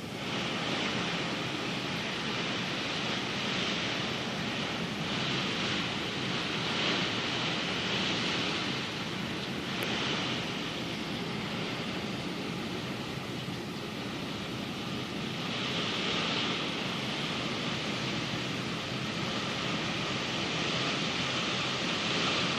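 Typhoon storm: gusting wind and driving rain. A steady rushing noise swells and eases every few seconds.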